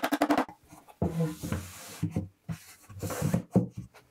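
A rapid, even run of light hammer taps on the screws that hold a plastic cyclone separator's flange to a wooden box lid, stopping about half a second in. Then scraping and rubbing with a few knocks as the box and its parts are handled.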